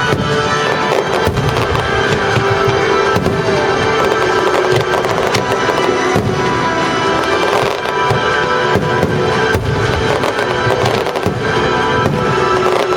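Aerial fireworks shells bursting in quick succession, many sharp bangs and crackles, over loud orchestral music.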